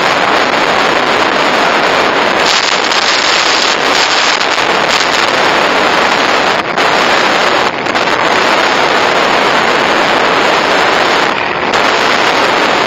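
Wind noise rushing over the microphone of a dash camera on a moving motorcycle, a steady loud hiss with a few brief dips.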